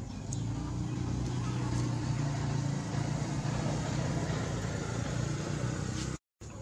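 A steady low engine hum, as of a motor vehicle running nearby. It breaks off in a brief dropout near the end.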